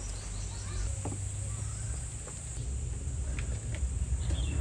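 Steady high insect chorus over a low outdoor rumble, with a few faint light taps.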